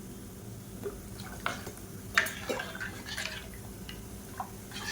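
Thin rasam liquid splashing and dripping in a pan as it is stirred, in a few short scattered splashes.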